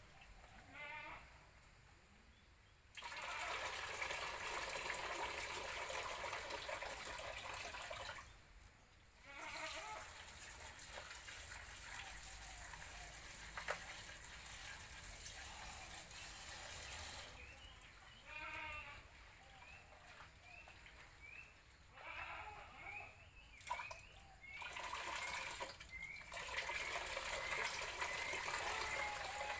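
Water from an outdoor tap running into a plastic bowl while food is rinsed by hand. The water starts about three seconds in, stops for a stretch in the middle, then runs again and is tipped out of the bowl near the end. Animal calls sound a few times in between.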